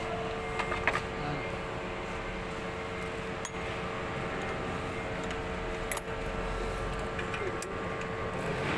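A steady mechanical hum under a few faint metallic clinks, a wrench knocking against the forklift's pedal and master-cylinder fittings, heard about a second in, again near the middle and once more a little later.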